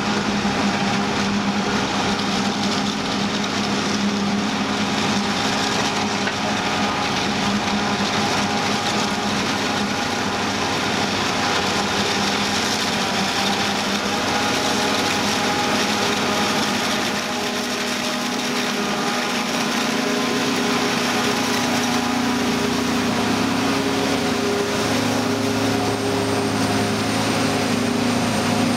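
John Deere 7950 self-propelled forage harvester running under load as it chops maize, a steady engine drone over a dense hiss, with the John Deere tractor hauling the silage trailer alongside. A deeper engine note comes up about two-thirds of the way through.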